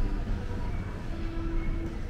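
Outdoor town street ambience: a steady low rumble with faint held tones and voices over it, one tone held briefly about a second in.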